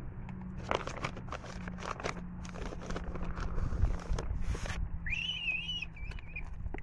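Scuffing footsteps and crackles on loose gravel and stones, with a steady low rumble underneath. About five seconds in comes a single high, wavering call lasting a second and a half.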